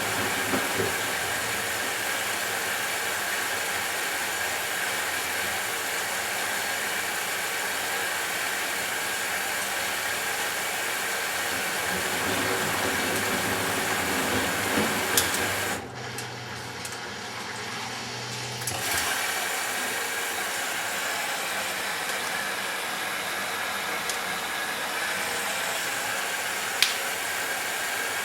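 Matura Autostatic 850 washing machine running a 60°C delicate wash with a steady rushing noise. About 16 s in the rush stops for some three seconds, leaving a low hum, then resumes. A few sharp clicks are heard, the loudest near the end.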